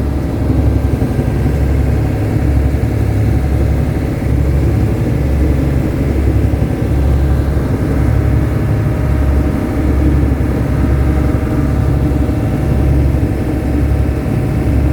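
Fishing boat's inboard engine running at idle: a loud, steady low throb that swells and eases at a regular beat, about every second and a half.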